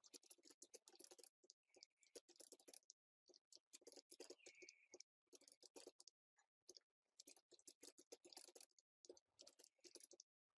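Faint computer keyboard typing: quick runs of key clicks broken by short pauses.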